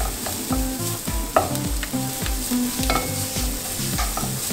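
Chopped garlic, shallots and chilies sizzling in hot oil in a nonstick wok, stirred with a wooden spatula that clicks and scrapes against the pan, one knock louder than the rest about a second and a half in. A soft low beat repeats about twice a second underneath.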